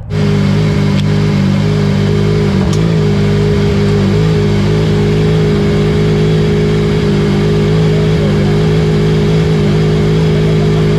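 Yamaha MT-09 inline three-cylinder engine of a cross car idling steadily, heard from inside the cockpit.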